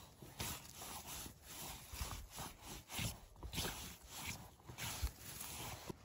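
Irregular rustling and brushing of moss and low forest plants as someone moves and handles the undergrowth, with a couple of soft thuds.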